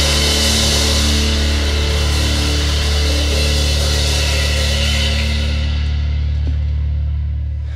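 Rock band (electric guitars, bass guitar and drum kit) ringing out a held final chord under washing cymbals. The cymbals die away about two-thirds of the way through and the held low notes begin to fade near the end, as the song finishes.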